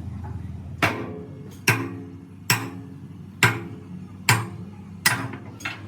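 Hammer striking steel, seven blows a little under a second apart, each with a short metallic ring; the last blow is lighter.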